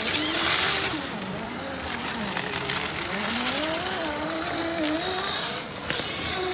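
Axial SCX10 III RC rock crawler's electric motor and gearbox whining, the pitch rising and falling with the throttle as it climbs a rock ledge. There are bursts of tyre scrabble on the rock in the first second and again from about two to four seconds in, and a couple of sharp knocks near the end.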